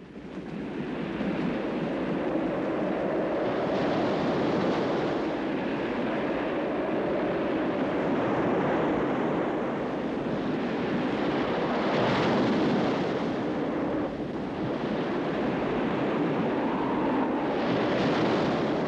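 Storm at sea: near-hurricane wind of about 50 knots and heavy seas rushing around a ship, a steady roar of wind and water that swells in surges three times.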